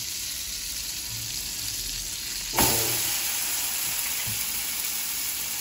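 Butter and garlic sizzling in a frying pan. About two and a half seconds in, a raw rib-eye steak is laid into the hot butter, and the sizzling jumps suddenly louder and stays louder.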